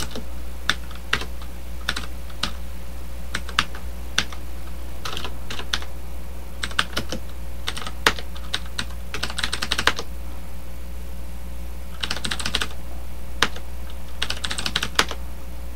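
Computer keyboard typing: single keystrokes and short quick runs of clicks with pauses between them, over a steady low hum.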